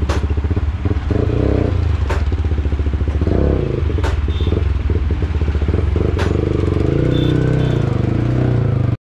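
Yamaha R15 V3's single-cylinder engine running, with a couple of short throttle blips. Near the end its pitch glides as the bike pulls away.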